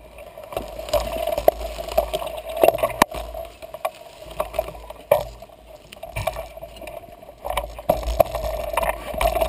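Mountain bike riding a dirt singletrack. Wind rumbles on the camera mic over a steady hum, and sharp clicks and rattles come from the bike over bumps. It goes quieter for a few seconds through the middle.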